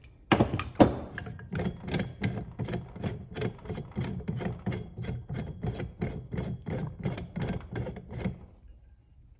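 Clutch spring compressor tool being worked on its threaded rod to let the compression off the scooter clutch's contra spring. Two sharp knocks come first, then a steady run of clicks, about three a second, which stops near the end.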